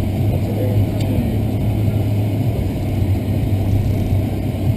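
Steady low rumble of a car being driven, engine and road noise without change in pitch.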